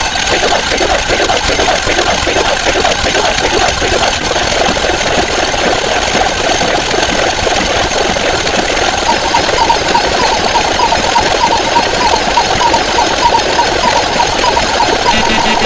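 Loud, dense rapid rattling from a mechanical-sounding sound effect. A quick repeating higher tone joins it about nine seconds in.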